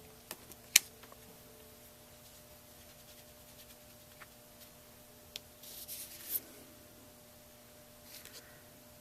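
Small handling sounds of stamping supplies and card stock on a craft table: one sharp tap about a second in, a few light ticks, then two short rustles of paper or card.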